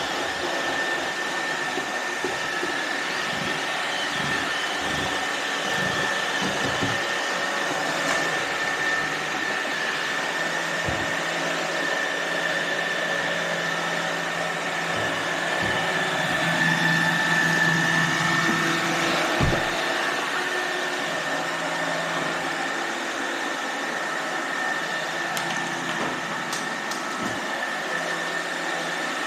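Roomba robot vacuums running: a steady motor and brush hum with a high whine, and occasional short low knocks.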